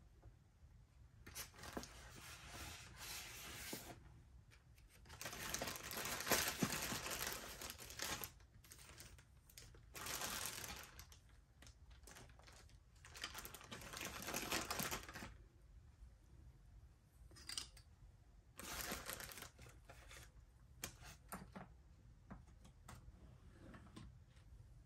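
Small plastic bags of accessories crinkling and rustling as they are handled and opened, in several separate bursts a few seconds long with quieter gaps between.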